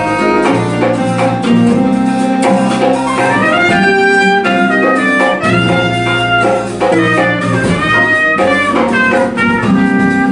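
Live jazz band playing, with a horn carrying a melody of held and gliding notes over guitar, piano and a steady bass line.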